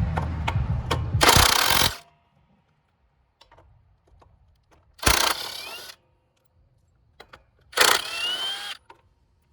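Cordless power tool spinning in three short bursts, each with a rising whine: about two seconds at the start, then about a second each around the middle and near the end. It is loosening the 12 mm headlight mounting bolts.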